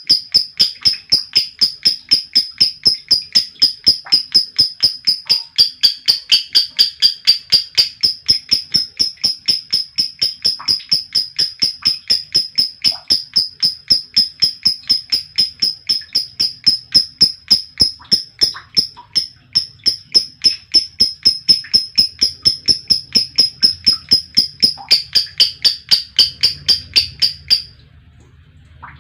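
Female lovebird giving a long ngekek: a rapid, unbroken series of shrill chirps, about three or four a second, that stops abruptly near the end.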